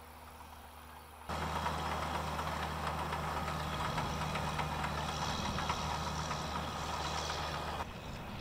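Farm tractor engine running steadily as it pulls a peanut digger through the rows, with a dense rattling clatter from the digger. Faint at first, it becomes suddenly much louder about a second in.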